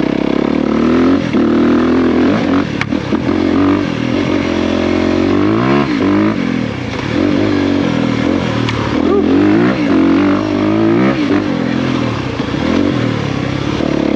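2023 Honda CRF250R's single-cylinder four-stroke engine pulling the bike along under throttle, its revs rising and falling several times as the rider rolls on and off. A couple of sharp knocks cut through, about three seconds in and near nine seconds.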